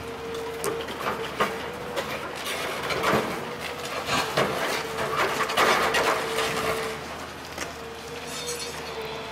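Tracked demolition excavator running steadily with a held hum while its crusher jaws work concrete rubble: repeated irregular knocks, crunches and clatter of breaking and falling concrete, busiest in the middle.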